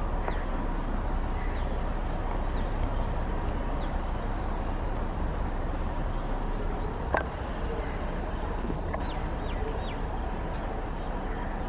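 Steady outdoor background noise with birds chirping now and then in short falling notes, three in quick succession about nine seconds in. A single sharp click comes about seven seconds in.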